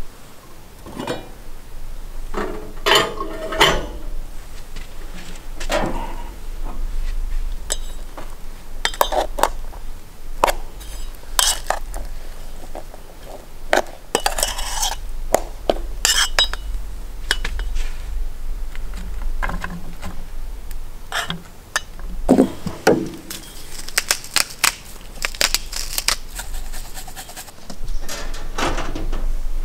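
Dishes and utensils clinking, knocking and scraping during food preparation, in irregular strokes, with a longer stretch of scraping about halfway through.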